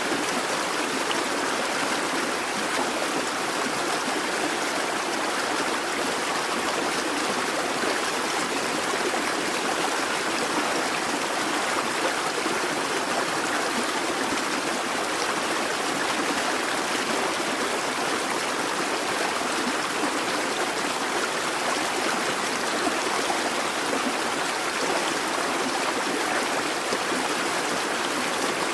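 A busy babbling brook: water running and splashing steadily over stones, an even rushing with no let-up.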